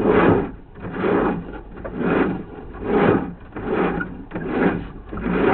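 Sewer inspection camera's push cable being fed into the drain line stroke by stroke. Each push gives a rasping rub, repeated evenly about every 0.8 s.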